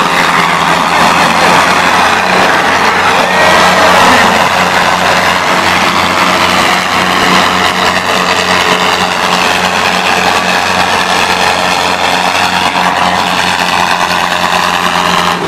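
Two tractors' diesel engines running hard under full load as they pull against each other in a tug-of-war, a loud, steady, unbroken drone.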